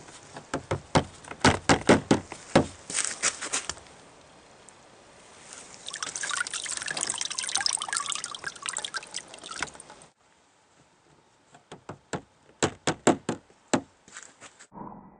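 Water splashing and sloshing in a plastic tub as a hand grips a submerged pistol, then a steady trickle of water pouring and dripping off the pistol as it is lifted clear. Near the end comes another run of splashes as it goes back under water.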